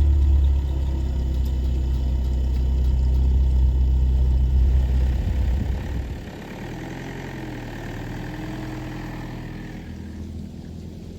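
Camper van engine running at idle, a loud steady low hum for about six seconds that then drops to a quieter, steady running sound.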